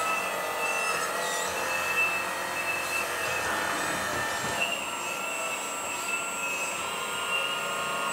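Electric hydraulic pumps of 1/12-scale RC hydraulic excavators whining steadily under load as the booms, arms and buckets move, with higher tones coming and going.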